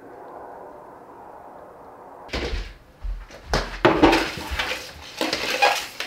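A large rack of raw beef ribs set down and shifted about on a metal tray on a steel table: a quick run of thuds and clatters beginning about two seconds in, after a faint steady hush.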